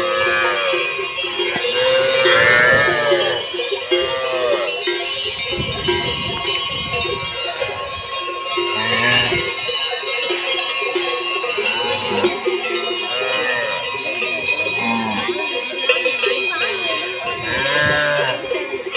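Many neck bells on a herd of zebu cattle clanging and ringing together as the animals walk past, a continuous overlapping jangle.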